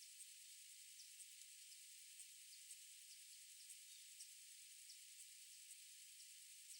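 Near silence: a faint steady hiss, with faint high ticks and short falling chirps about twice a second.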